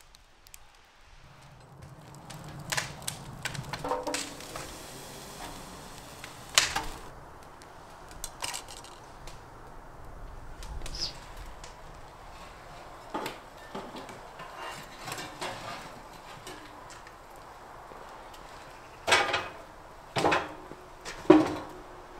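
Outdoor cooking and fire-tending handling: scattered clinks and knocks of metal cookware, utensils and firewood, ending in three louder knocks about a second apart.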